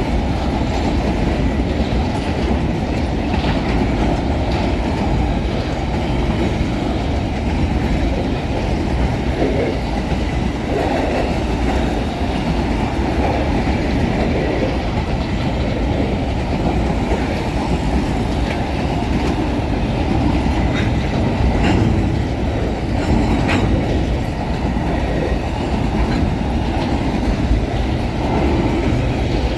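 Empty freight train's wagons rolling past at speed: a steady loud rumble of steel wheels on rail, with scattered sharp clicks over the rail joints.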